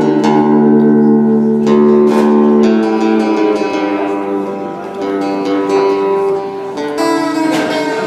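Acoustic guitar picked and strummed, with chords ringing out and a fresh strum every few seconds.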